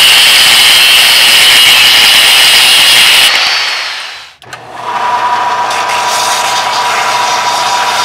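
A power tool cutting through a steel rod, a loud steady whine with grinding noise, stops abruptly a little over three seconds in. About a second later a belt sander starts running with a steady hum, rounding off the end of the rod.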